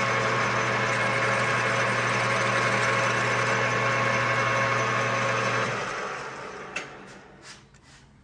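Metal lathe running steadily, then switched off about six seconds in and coasting down to a stop, with a sharp click and a few light knocks as it winds down.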